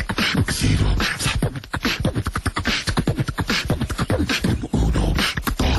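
A voice beatboxing: fast vocal percussion of clicks and hisses over deep bass thumps, stopping just after the end.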